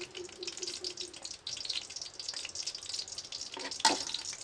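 Coconut oil heating in an aluminium kadai on a gas burner, crackling with a dense patter of fine pops. Near the end, a single metallic clank that rings briefly.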